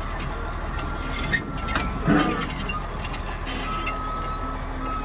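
Caterpillar D8R bulldozer's diesel engine running steadily, with a thin whine that comes and goes and a few short clanks about two seconds in.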